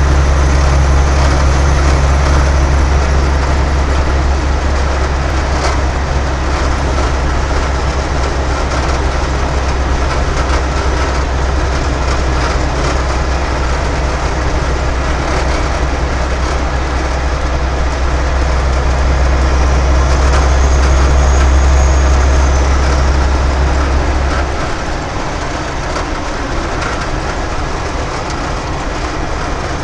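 Heavy truck at highway speed, heard inside the cab: a steady low engine drone over tyre and wind noise. The low drone drops away about 24 seconds in and the noise gets a little quieter.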